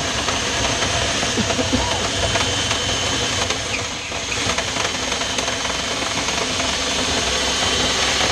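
Power drill spinning a rotary dryer-vent brush down inside the vent pipe to clear lint: a loud, steady whirring and rushing noise.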